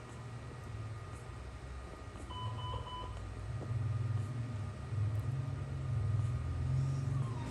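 A short electronic beep of three quick pips, over a low rumble that grows louder.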